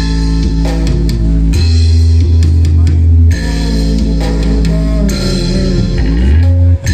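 Music with bass, guitar and drums played loudly through a miniature home-spec sound system being tested, its deep bass notes changing about every second.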